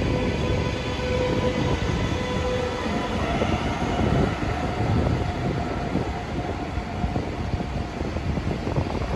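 Electric locomotive, a DB class 146, hauling RSX double-deck coaches past along the platform: a continuous rumble of wheels on the rails with a faint whine from the traction electronics that steps up in pitch about three seconds in.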